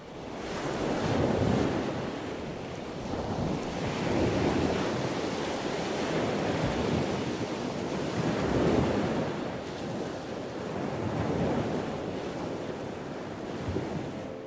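Ocean surf: waves breaking and washing in, swelling and ebbing every few seconds.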